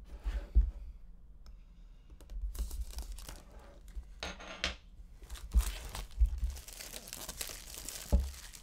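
Clear plastic wrap being slit, torn and crinkled off a small cardboard box, in a run of rustling with a few sharp knocks of the box against a wooden desk.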